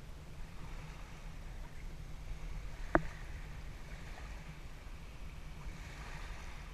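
Low rumble of wind on the microphone over a faint steady hiss, with one sharp click about three seconds in.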